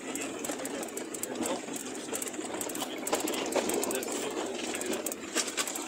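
A 4x4 jeep driving over a rough, rocky track: a steady clatter of quick, irregular rattles and knocks from the jolting body, mixed with road noise.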